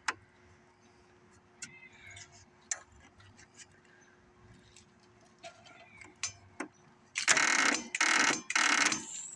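Small clicks and handling noises over a faint steady hum, then near the end three short loud bursts of about half a second each: the freshly freed electric starter on the Briggs & Stratton mower engine being tried in brief stabs, not yet turning the engine over, with the battery possibly not charged enough.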